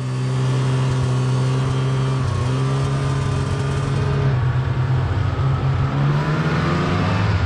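Snowmobile engine running under way. It fades in at the start, dips in pitch about two seconds in, then slowly climbs as the throttle is opened.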